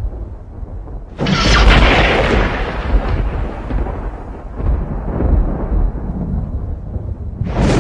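Thunder: a low rolling rumble, then a sharp nearby crack about a second in that rolls away over several seconds, and another sharp clap near the end.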